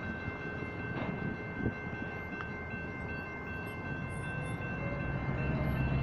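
Railroad crossing signal's General Signals Type 2 electronic bell ringing steadily, a tone pattern that repeats without a break. From about five seconds in, the low engine rumble of the approaching train grows louder.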